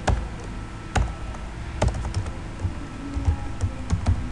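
Typing on a computer keyboard: irregular key clicks, a few a second, with short pauses between bursts.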